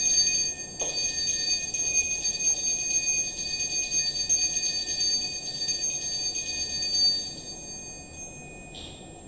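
Altar bell rung at the elevation of the chalice, marking the consecration of the wine: a bright metallic ring, struck again about a second in, that fades out about seven to eight seconds in.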